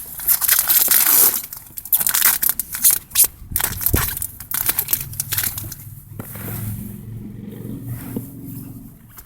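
Foil booster pack wrapper being crinkled and torn open, a dense crackling over the first few seconds. It gives way to quieter rustling over a low droning sound in the second half.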